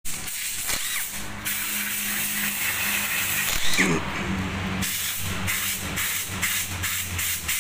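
Cordless power driver with a socket extension running in a couple of short spells, backing bolts out of the front of an engine block, with a few light metal knocks.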